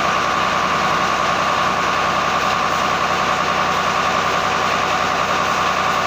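Tractor engine running steadily at constant speed, driving a belt-driven centrifugal water pump through its PTO shaft, with a steady whine on top.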